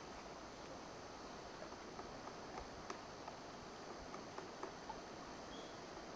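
Pileated woodpecker chiselling into a tree trunk: faint, irregular wood-knocking taps, around three a second from about a second and a half in, over a steady background hiss.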